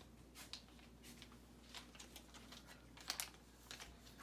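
Faint, irregular clicks and crinkles of plastic toy packaging being handled, a few short ticks scattered through, the sharpest a pair about three seconds in.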